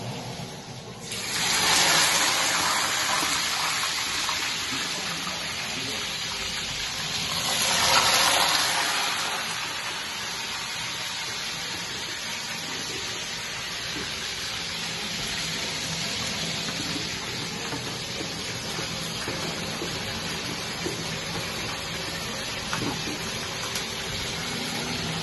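Potato chips deep-frying in hot oil, a loud sizzle that surges about a second in and again around eight seconds, then settles into a steady sizzle.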